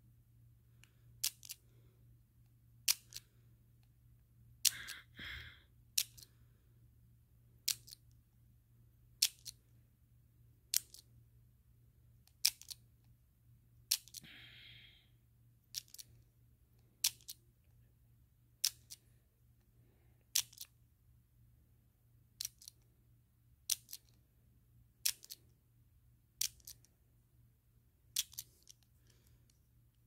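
American Lock dial combination padlock being worked by hand, giving sharp metal clicks, mostly in quick pairs, about every second and a half, as the dial is stepped number by number and the shackle is tried. There is a brief scraping rustle twice, about five and fourteen seconds in.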